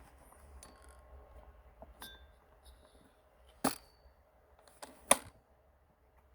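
A few sharp metallic clinks with a short ring, as small metal parts are knocked together or set down. The two loudest come in the second half, about a second and a half apart.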